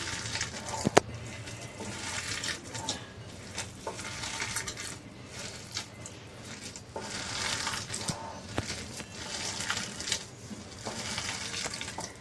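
Hands squishing and kneading raw minced chicken with lemon juice, a wet squelching with small clicks, and one sharp tap about a second in.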